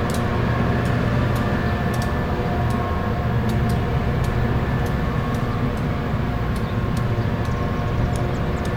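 Harsco rail grinding train at work: a steady loud drone of grinding stones on the rails and the train's engines, with many steady tones in it and scattered sharp clicks.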